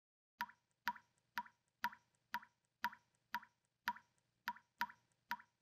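Liquid dripping steadily, one drop about every half second, each a short plop with a brief ringing note.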